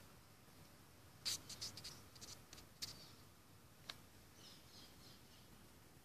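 Near silence: faint room tone broken by a quick run of small sharp clicks about a second in, one more tick near four seconds, and a few faint high chirps after that.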